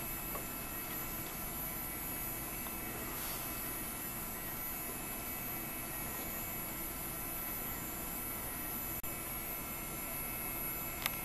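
Steady whir and hum of a running SGI O2 workstation's cooling fan, with a few faint steady whine tones. A brief dip in the noise comes about nine seconds in, and a faint click near the end.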